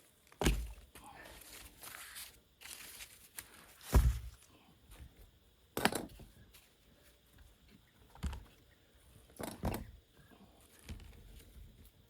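Hands-on handling sounds: five dull knocks spread out, the second the loudest, with rustling and crinkling between them.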